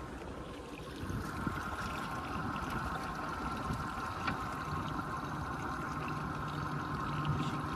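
Boat under way: water rushing along the hull over the steady hum of its motor, which grows a low steady tone about halfway through.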